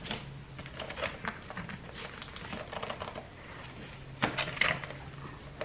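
Irregular small clicks, taps and rustles of a hardcover journal and a pen pouch being handled as the pouch's elastic strap is fitted over the cover, with a louder cluster of knocks about four seconds in.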